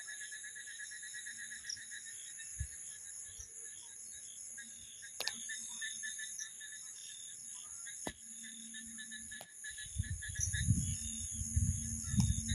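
Night chorus of crickets and other insects: a steady high-pitched trilling with a faster pulsing chirp lower down. A few sharp clicks are heard, and a low rumble comes in near the end.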